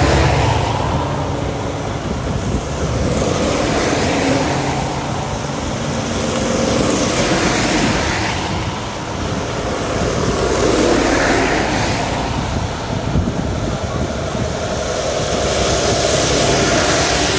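Heavy goods lorries driving past one after another, each truck's diesel engine and tyre hiss swelling as it comes close and fading as it goes, several times over.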